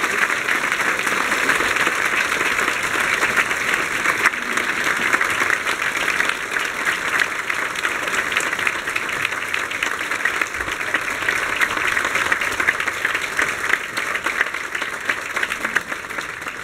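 Crowd applauding, a dense, steady clapping that slowly tapers off toward the end.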